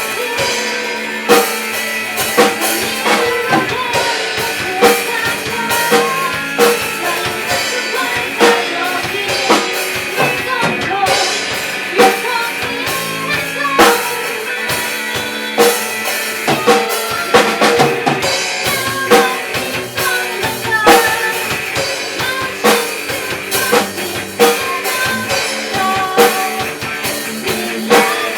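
Music with a steady drum-kit beat, snare and bass drum hits repeating evenly under sustained pitched instruments.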